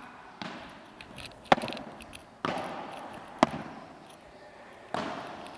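Padel ball being hit back and forth with solid padel rackets and bouncing on the court: five sharp pocks roughly a second apart, echoing in a large indoor hall.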